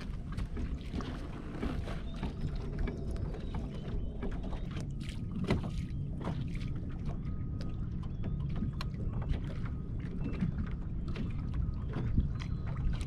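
Small waves slapping and knocking against a bass boat's hull, with wind rumbling on the microphone. A faint steady whine, from the electric trolling motor driving the boat, comes in about five seconds in.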